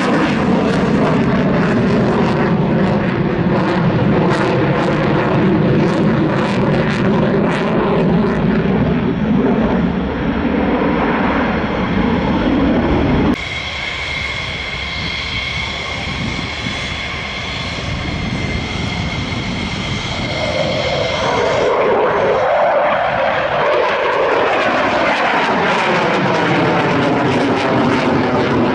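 F/A-18 jet fighter's engines during a display flight: loud jet noise sweeping in pitch as the jet passes. About halfway in it cuts off abruptly to a quieter, steady high-pitched engine whine, and the loud jet noise builds again near the end.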